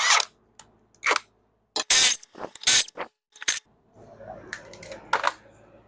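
Cordless impact wrench firing in about five short bursts, spinning the lug nuts off a car's front wheel, followed by fainter handling noise.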